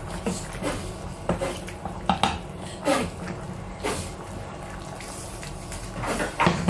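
Wooden spatula stirring cauliflower curry in a stainless steel saucepan, knocking and scraping against the pot in irregular clicks. The loudest knocks come about two seconds in and again just before the end.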